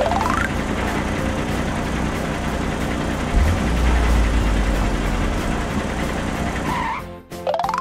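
Cartoon heavy-truck engine sound effect running steadily, with a deeper, louder rumble coming in about halfway through. A short rising sweep sounds at the start and again near the end, as the engine sound cuts off.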